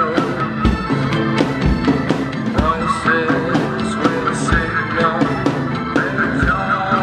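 A psychedelic rock song with guitar, played along on an acoustic drum kit: kick drum thumps about once a second under snare and cymbal hits.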